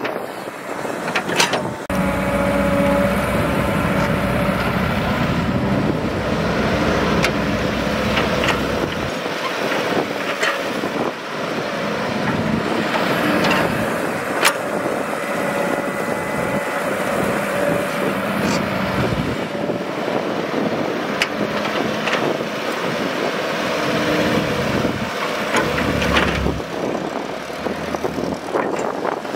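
Caterpillar tracked hydraulic excavator's diesel engine running while digging, its note swelling heavily under hydraulic load at times and easing off between, with occasional sharp metallic clanks.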